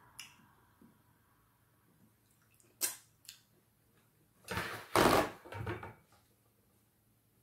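Close-up eating sounds of fufu and okra soup eaten by hand: a few small clicks and a sharp smack, then a loud wet slurp lasting about a second and a half as a mouthful goes in.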